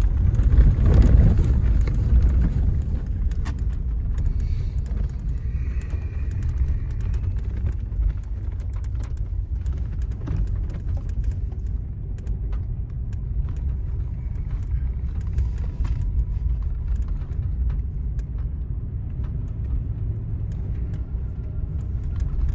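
Vehicle driving, a steady low rumble of engine and road noise with small ticks and rattles throughout.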